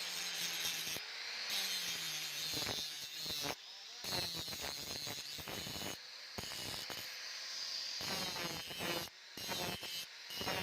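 Metalworking tool on the steel of a hand-forged axe head, giving an irregular scraping noise broken by short pauses.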